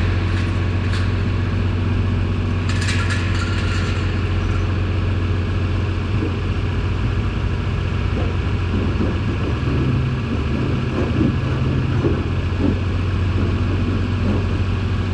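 Semi-truck diesel engine running steadily with a low drone.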